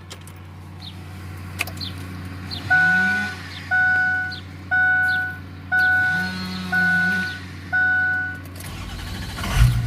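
Pickup truck's seatbelt warning chime beeping six times, about once a second, at one steady pitch: the reminder sounding with the key on and the belt unbuckled, now that its unplugged connector has been plugged back in. Near the end the engine turns over and starts.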